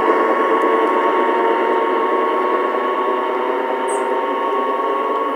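LGB V220 G-scale model diesel locomotive running, a steady drone with no bass that slowly gets quieter as the locomotive pulls away.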